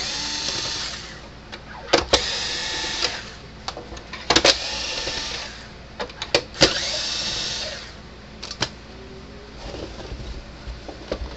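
Cordless drill-driver spinning out the case screws of an electric fence charger: four short whirring runs of about a second each, roughly two seconds apart, each starting with a click, followed by lighter clicks of handling near the end.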